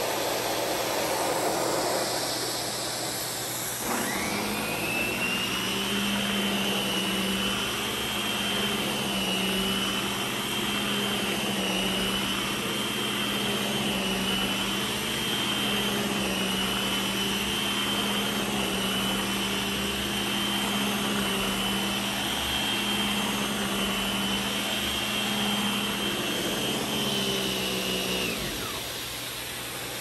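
Central vacuum running, with a steady rush of suction air through the hose. About four seconds in, the Stealth Kit's electric powerhead switches on with a quickly rising whine and runs steadily as it is pushed over carpet, then winds down about two seconds before the end.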